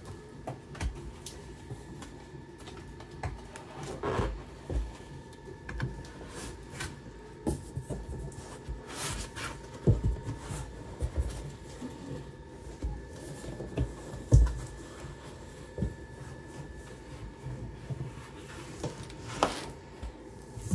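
Cardboard box and packing being handled as a boxed laser engraver is lifted out: cardboard rubbing and scraping against the machine's casing, with irregular knocks and thumps, the loudest about ten seconds in and again about fourteen seconds in.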